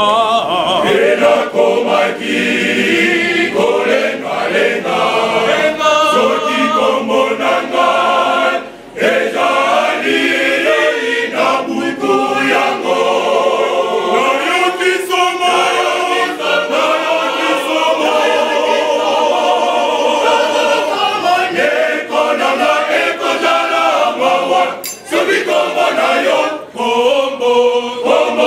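A choir singing together in full voice, with a short break about nine seconds in.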